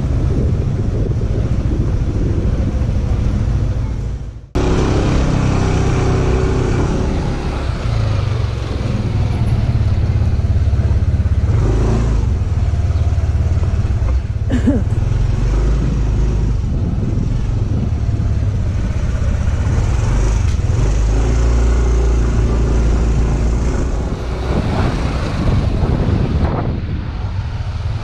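Motorcycle engine running at low speed, with a heavy low rumble of wind on the microphone. The sound drops out for a moment about four seconds in.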